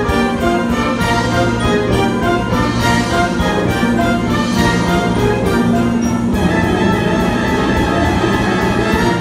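Wind orchestra with piano playing a sustained, full passage of an arranged show tune, over a fast, even high ticking beat.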